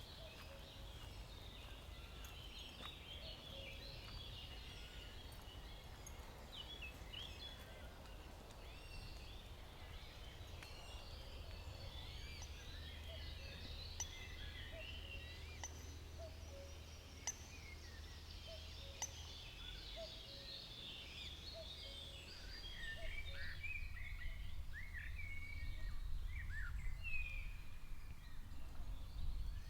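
Several songbirds chirping and singing in woodland, with many short notes that grow louder and busier near the end, over a steady low background rumble.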